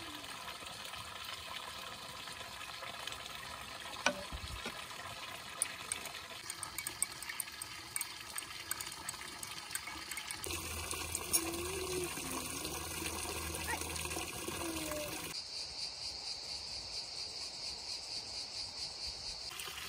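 Spring water running steadily, with a metal spoon clinking against a drinking glass in quick light taps as a drink is stirred, in the middle of the stretch.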